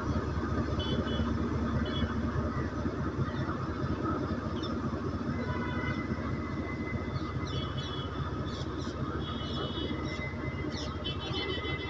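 Indian Railways goods train running on the rails with a steady rumble. Short high chirps and thin whistling tones come in over it in the second half.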